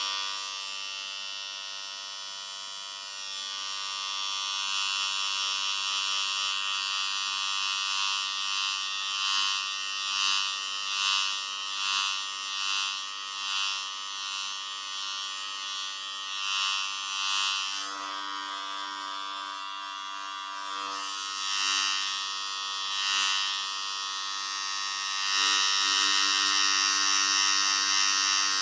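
Electric hair clippers running with a steady buzz that swells and fades again and again, as if passing through hair. It grows louder near the end.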